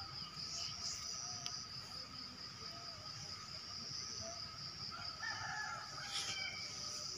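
Steady high-pitched insect chorus, with a bird calling briefly about five seconds in.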